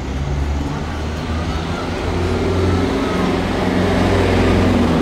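Road traffic, with the low, steady hum of a heavy vehicle's engine close by, growing louder over the last few seconds.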